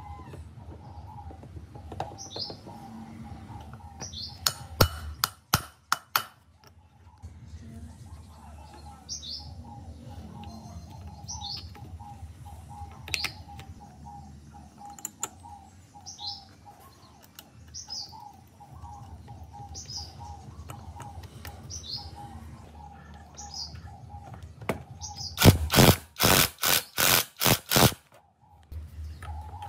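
A small bird chirping, one short falling chirp about every two seconds, over a low steady background rumble. Two quick runs of loud, sharp knocks break in, about six near five seconds in and about eight near the end.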